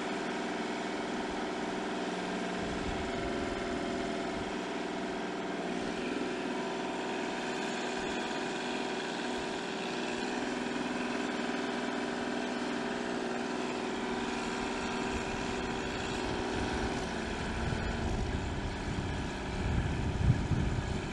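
Kubota compact tractor's diesel engine running steadily at low speed, its pitch shifting slightly now and then as it creeps forward. Near the end an uneven low rumble grows louder.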